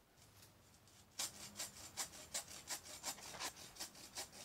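Hand saw cutting through a dead tree limb in quick, regular back-and-forth strokes, starting about a second in, as the cut opens up.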